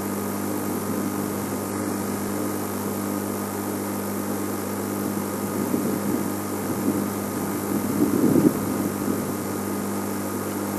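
Safari game-drive vehicle engine idling with a steady low hum. A louder, uneven noise rises about six seconds in and peaks around eight seconds.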